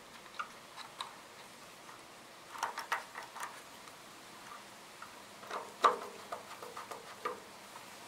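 Small clicks and taps of a screwdriver and wire ends on the terminal screws of an electric water heater's heating element as its wires are reconnected, in two loose clusters a few seconds apart.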